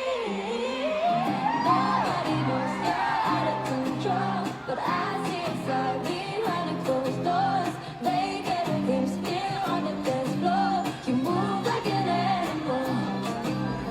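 Pop song with female group vocals singing over repeating synth chords, the deep bass held back in a sparse section.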